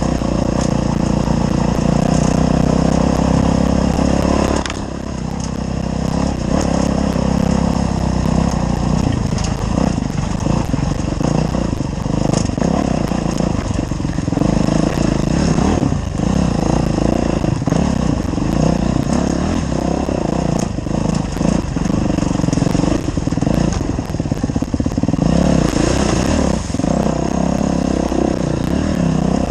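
Dirt bike engine running hard over a rough, rocky trail, its pitch rising and falling with the throttle, with frequent knocks and rattles from the bike bouncing over rocks. The engine drops off briefly about five seconds in.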